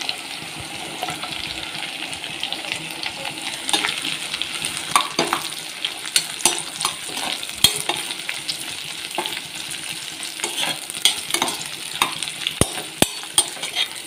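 Chopped onions sizzling in hot oil in a pan while a metal spoon stirs them, clicking and scraping against the pan over a steady frying hiss; the clicks come more often from about four seconds in.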